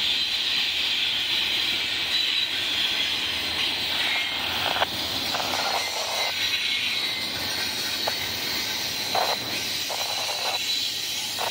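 Double-stack container cars of a freight train rolling past: a steady hiss of steel wheels on rail, with a few clanks, the sharpest about five seconds in.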